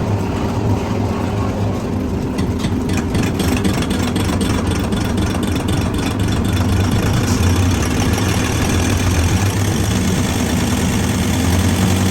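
Engine or motor running steadily with a strong low hum, with a stretch of rapid clicking or rattling about two to four seconds in.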